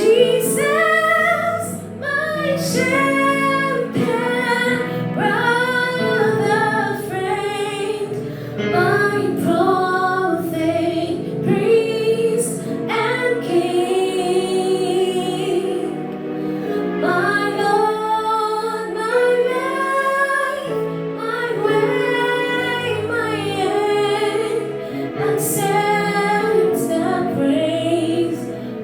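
A woman singing a slow hymn melody over sustained instrumental accompaniment.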